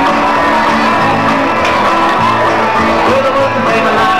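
High school marching band playing its field show: held melody notes over bass and percussion.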